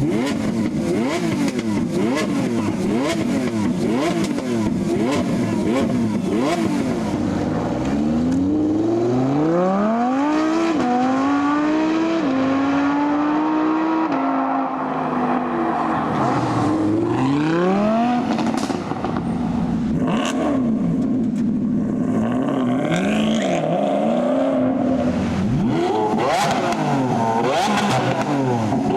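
Supercar engine revving: a run of quick throttle blips, then about eight seconds in a hard acceleration with a rising note broken by upshifts, a drop in revs, another pull, and more blips near the end.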